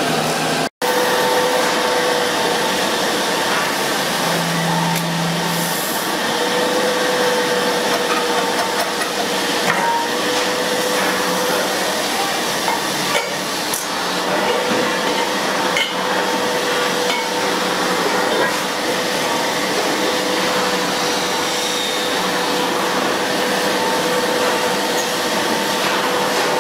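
Lathe running while a hand-held cutting tool shaves a metal pressure cooker body turning on its mandrel: a steady scraping and hissing noise over a steady motor hum, with a few light knocks.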